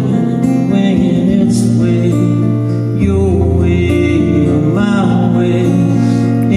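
Live solo song: a man singing over a strummed acoustic guitar, amplified through the stage PA.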